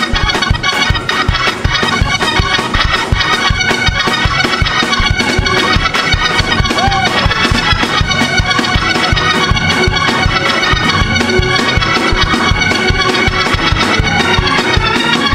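Fast, upbeat church organ music over a quick, steady beat, with the congregation clapping along, played for dancing.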